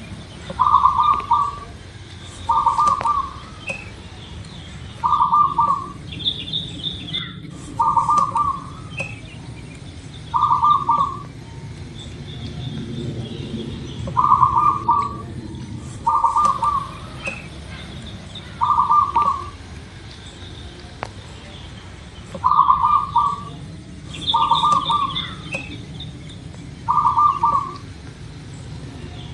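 Zebra dove cooing: short trilled coos repeated every two to three seconds, about eleven in all, with a few brief higher chirps from another bird between them over a steady low background hum.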